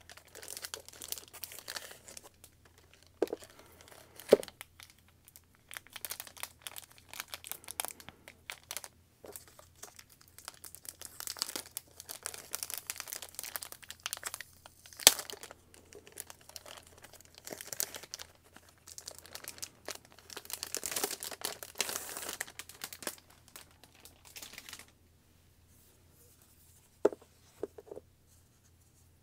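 Clear plastic wrapping crinkling and taped plastic film being peeled and torn by hand, with scattered sharp clicks. It stops a few seconds before the end, leaving a couple of light knocks.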